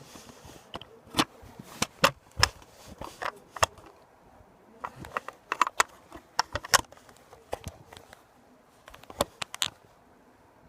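Small tool prying at and handling an iPod's internal parts: irregular sharp clicks and scrapes, in clusters with short pauses between.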